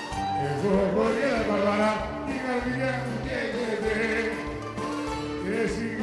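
Live Greek popular music: a band playing with a male singer's voice over steady bass notes.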